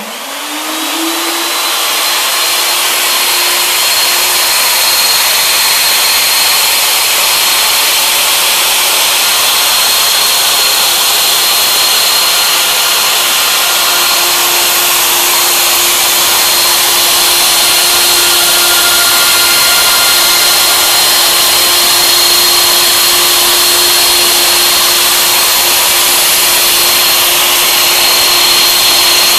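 CNC router's twin high-speed spindles spinning up, their whine rising over the first second, then running at a steady, loud pitch with a dense hiss as the router bits carve the blade pitch into two maple propeller blanks.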